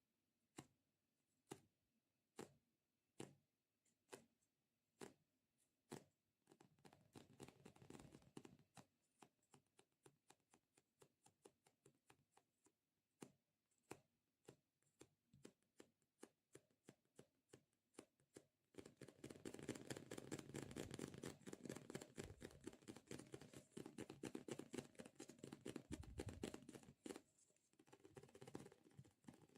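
Close-miked ASMR handling sounds, soft overall: separate sharp clicks under a second apart, growing denser, then about two-thirds through a fast, continuous crackling.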